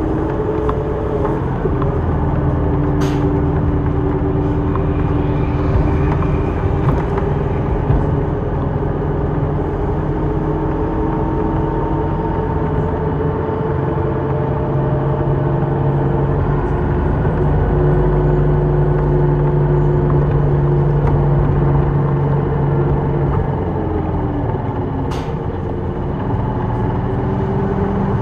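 Inside a moving city bus: the bus engine's steady hum over tyre and road noise, its pitch dropping near the end. Two sharp clicks stand out, about twenty seconds apart.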